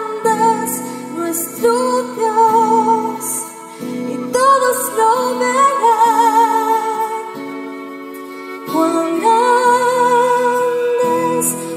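Worship music: a woman's voice holding long notes with vibrato over sustained accompanying chords, easing off for a moment about two-thirds of the way through, then returning.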